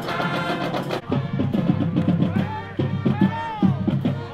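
Background music: held chords, then about a second in a heavy drum beat starts, with notes sliding up and down over it.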